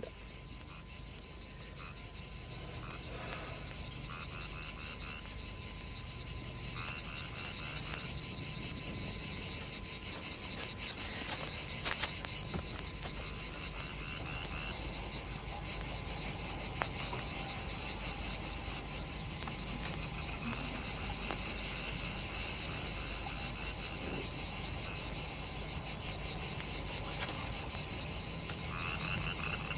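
Frogs and insects calling together in a steady chorus, a high, rapidly pulsing trill that carries on without a break.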